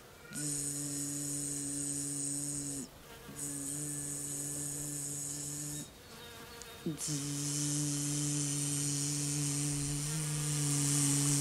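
Human humming imitating a bee's buzz, done bee-breath (bhramari) style with the ears and eyes covered by the fingers. It comes as three long, steady, low hums with short pauses for breath between them, and a high hiss starts and stops with each hum.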